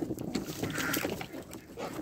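Homing pigeons cooing, with a short rustle about a second in.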